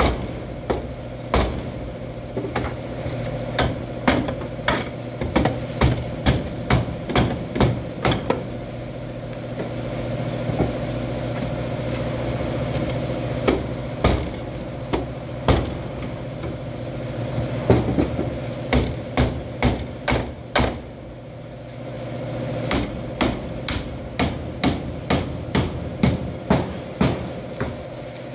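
Hammer blows on the damaged rear body panels of a Hyundai Sonata, in runs of about two strikes a second with a quieter pause in the middle, over a steady hum.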